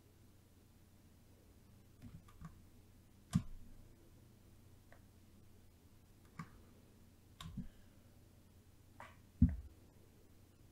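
Scattered computer-mouse clicks, about ten, some in quick pairs, the loudest about three and a half seconds in and near the end, over a faint steady hum.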